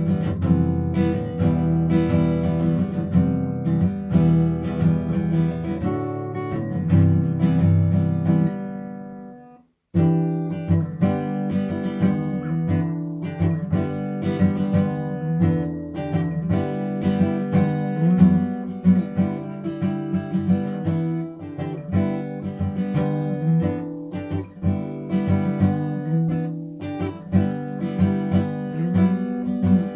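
Acoustic guitar music, strummed and plucked. It fades out about a third of the way in, and after a brief silence another guitar piece starts abruptly.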